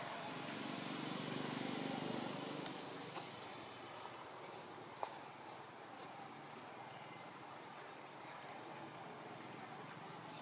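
Steady high-pitched insect drone in the background, with a faint low rumble over the first few seconds and a single soft click about five seconds in.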